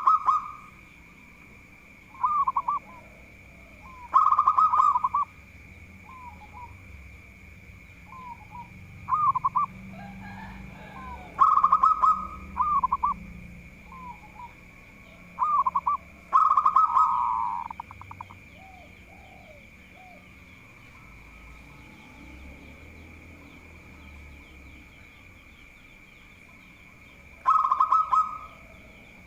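Zebra dove (perkutut) cooing: a series of short bursts of rapid, rolling coos, with softer fragments between them. There is a long pause before the last burst near the end.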